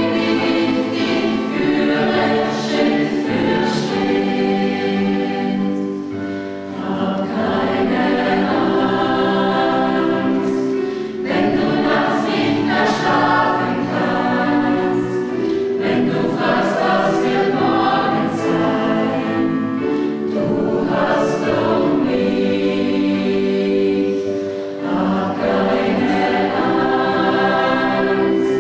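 Mixed choir of women's and men's voices singing sustained chords, phrase after phrase, with brief breaks between phrases.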